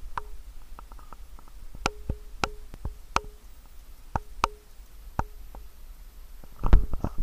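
A series of irregular sharp knocks, about a dozen, several with a short hollow ring, over a low rumble; a louder cluster of knocks comes near the end.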